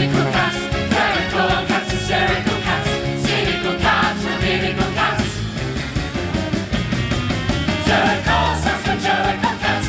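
Upbeat musical-theatre band music with a steady drum beat and a bass line, with ensemble voices singing along.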